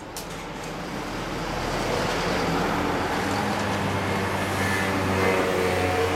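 A road vehicle's engine drawing near, with a low, steady hum. It grows louder over the first two seconds and then holds steady.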